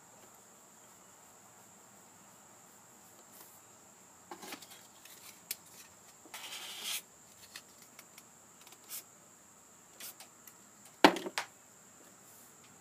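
A paintbrush working on a sketchbook page: soft clicks and taps, a short scratchy brushing stroke a little past halfway, and one sharp knock about eleven seconds in. A steady faint high-pitched tone runs underneath.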